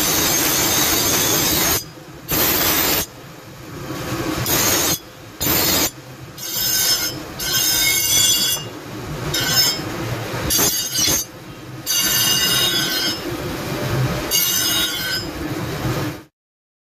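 Bench grinder wheel grinding the edge of a steel meat cleaver blank, with sparks. The steel is pressed to the wheel in repeated passes, so the grinding comes and goes in bursts. From about six seconds in, the passes carry a high screeching ring. The sound cuts off suddenly near the end.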